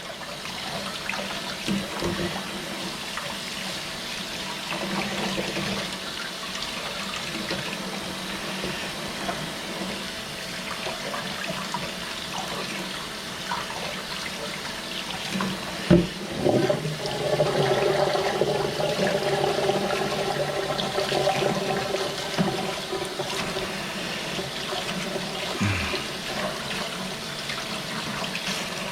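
Kitchen sink tap running steadily while raw fish fillets are rinsed under it. About halfway through there is a single knock, after which the running water takes on a clear pitched ring for several seconds.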